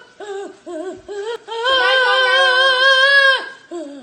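A high voice singing a few short up-and-down notes, then holding one long note with a slight wobble for about two seconds before it cuts off.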